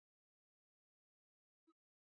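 Near silence: the sound track is blank.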